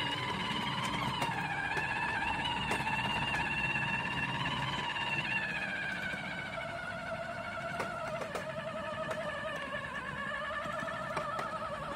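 Battery-powered toy ride-on motorcycle's electric motor whining as it drives, with its pitch sinking in the second half as it slows, a sign of flat batteries. Faint ticks from the small wheels run through it.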